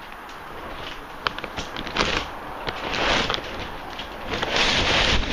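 Heavy rain falling on a plastic tarpaulin cover overhead, with many sharp drop ticks on the sheet; the hiss swells louder about three seconds in and again near the end.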